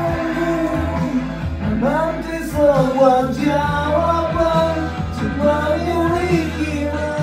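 A man singing into a handheld karaoke microphone over a music backing track, drawing out long notes that bend in pitch above a steady bass line.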